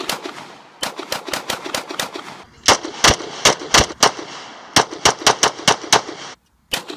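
Pistols fired in quick succession, several shots a second, in strings broken by short pauses, with the shots echoing across the range.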